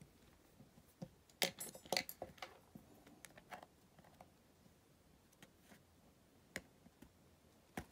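Faint clicks and taps of an orange plastic spudger and an iPhone 8 Plus handled on a silicone repair mat while the glued screen is pried away from the frame, with a short cluster of louder clicks about one and a half to two seconds in and a few single ticks after.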